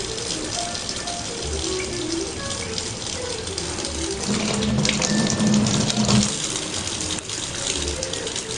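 Background music with a steady beat over a continuous hissing, rushing noise like running water. A louder low drone joins it from about four to six seconds in.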